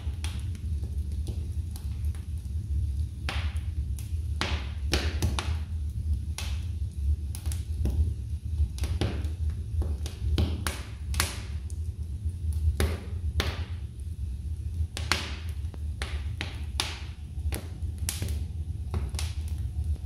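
Wood logs burning in a fireplace, crackling with irregular sharp pops over a steady low rumble.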